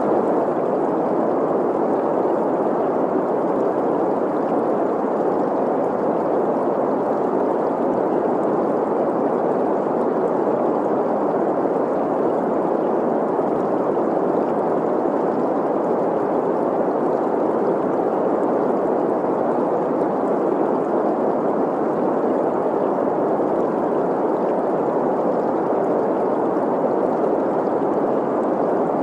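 Synthetic green noise, a steady mid-pitched rush, blended with the sound of a flowing stream, holding an even level throughout.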